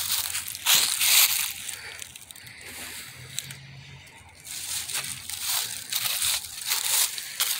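Footsteps crunching on dry ground at a walking pace, about two steps a second, pausing for roughly two seconds midway before starting again.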